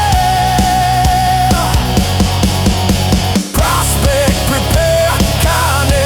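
Instrumental rock music: a held lead melody over a steady drum beat, with a short break about three and a half seconds in.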